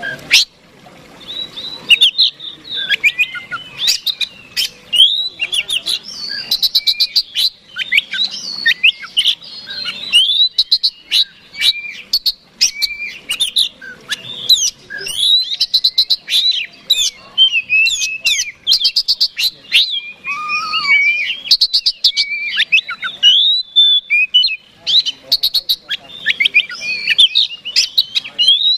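Oriental magpie-robin (kacer) singing nonstop: a rapid, unbroken stream of sharp chips, clicks, trills and short whistles. This is the aggressive fighting-mood song of a male.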